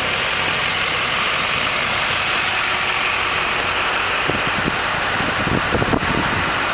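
A vintage car's simple magneto-ignition engine idling steadily under a loud, even hiss. There are a few low thumps about four to six seconds in, and a sharp click near the end.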